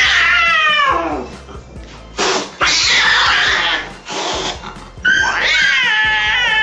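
Agitated domestic cat caterwauling: a falling yowl at the start, harsh hissing in the middle, then a long wavering yowl from about five seconds in.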